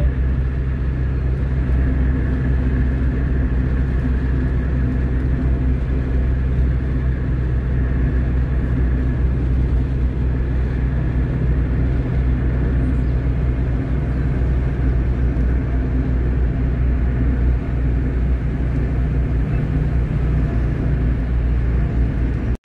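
Car driving at a steady speed: a steady low engine drone with road rumble.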